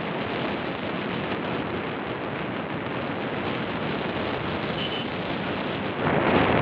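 Steady rush of wind over the microphone of a moving motorbike. It gets louder about six seconds in.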